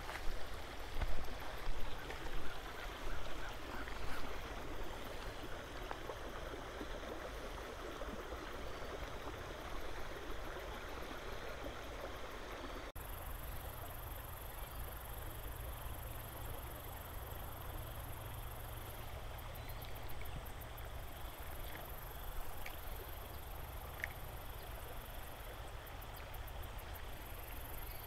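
Footsteps swishing through tall grass for the first few seconds, about two steps a second, then steady outdoor background hiss with a faint high pulsing buzz in the second half.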